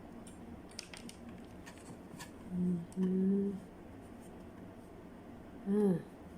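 A few light clicks and taps from handling small objects, then a person humming two short steady notes, and a brief falling 'hm' near the end.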